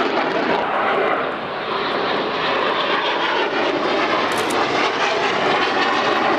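Loud, steady jet noise from a MiG-29 fighter's twin Klimov RD-33 turbofan engines in flight.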